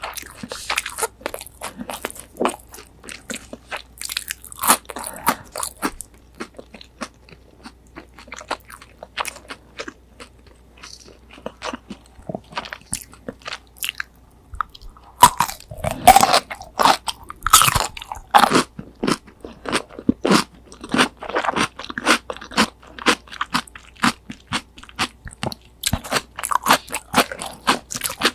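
Close-up crunching and chewing of crispy breaded, deep-fried pork cutlet (tonkatsu), full of sharp crackles. The chewing is sparser and quieter through the middle, then louder, denser crunchy bites follow from about halfway.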